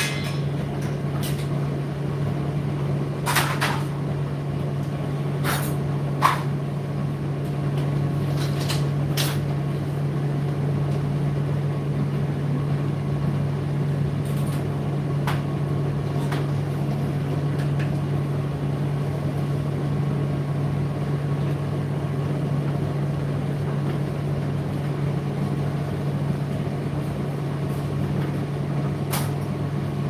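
Indesit IDC8T3 8 kg condenser tumble dryer running steadily with a low hum, and a few scattered clicks.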